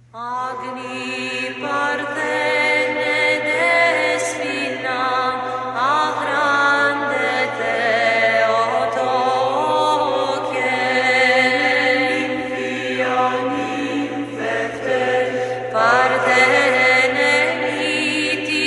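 Greek Orthodox Byzantine chant: a hymn to the Theotokos sung in long melismatic phrases, the voice holding notes and gliding between pitches.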